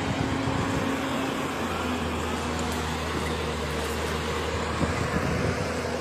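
An engine running steadily at an even speed: a low hum with a constant pitch over a wash of outdoor noise.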